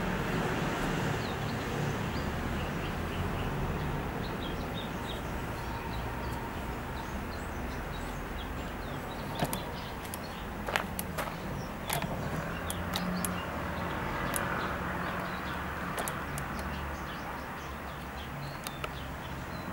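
Outdoor background of small birds chirping over a steady low hum like distant traffic, with a handful of sharp clicks about halfway through and a few more near the end.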